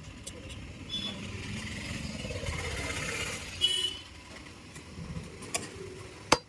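Street traffic: a motor vehicle passes, its noise swelling for a couple of seconds and then fading. It is followed by a brief high-pitched toot and a few sharp knocks near the end.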